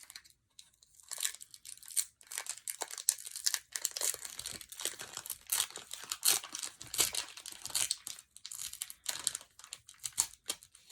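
Foil Pokémon booster pack wrapper crinkling and rustling in irregular bursts as it is handled and worked open.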